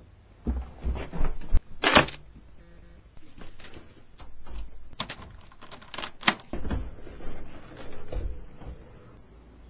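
Irregular knocks, clicks and thumps: a sharp bang about two seconds in, two more around five and six seconds in, and low thumps after them.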